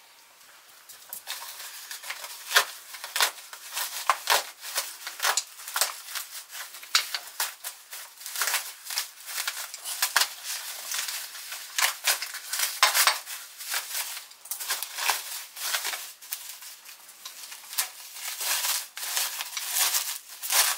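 Bubble-wrap and plastic packaging being cut and pulled open, crinkling and rustling with irregular sharp crackles.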